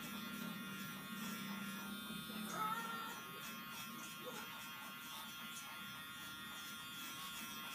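Cordless pet grooming clipper running with a steady electric buzz as it trims a shih tzu's matted coat, with a short higher-pitched squeak about two and a half seconds in.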